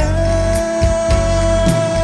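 Indonesian pop song: a singer holds one long note over band accompaniment with a steady drum beat.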